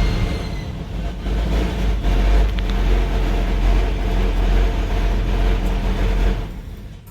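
1966 Ford F-100's V8 engine running, with a faint high squeak that fades out within the first second, a squeak the owner wonders may be a vacuum leak. The engine sound falls away near the end.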